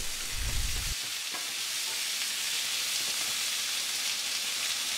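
Carrots and snow peas sizzling in olive oil in a hot ridged grill pan: a steady frying hiss.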